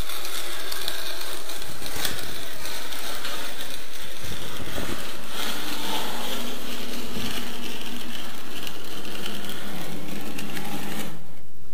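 Steel inside-corner trowel drawn along wet plaster in a wall corner: a steady gritty scraping that breaks off near the end.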